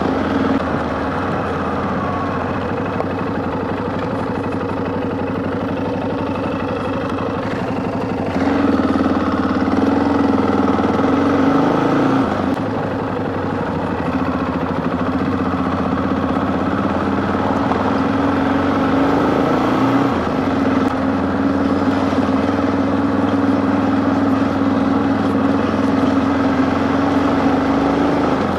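Yamaha XT660Z Ténéré's single-cylinder engine running while riding at a steady pace. The engine note rises and gets louder about eight seconds in, then eases back a few seconds later.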